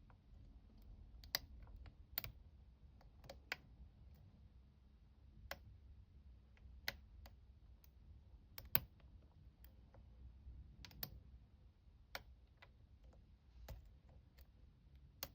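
Lock pick working the pins inside a five-pin pin-tumbler lock under tension: faint, sharp metallic clicks at irregular intervals, roughly one a second.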